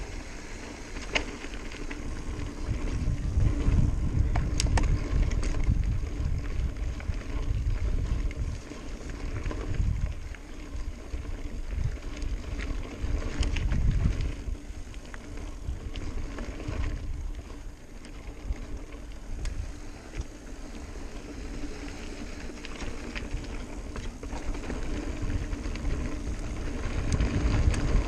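Mountain bike rolling down a dirt singletrack: low wind rumble on the microphone and tyre noise on the dirt, swelling and easing, with scattered sharp clicks and rattles from the bike over rough ground.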